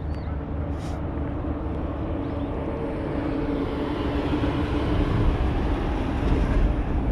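Steady engine rumble with a droning tone, growing gradually louder toward the end.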